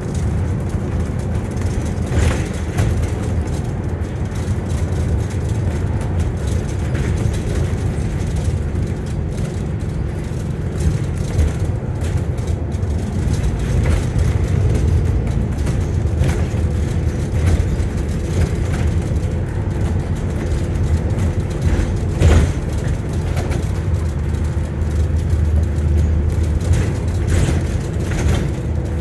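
Interior running noise of an Alexander Dennis Enviro400 MMC double-decker bus on the move: a steady engine and road hum, with a few sharp knocks from the body, about two seconds in and again near the end.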